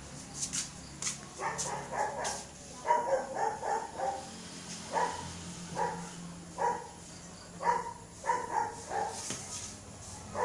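An animal calling in short, repeated barks, some in quick runs of three or four and some single, starting about a second and a half in.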